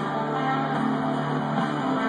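Guitar music playing loudly through a homemade speaker setup: a fur-covered speaker and a board of four cone speakers under test. The sound carries little deep bass.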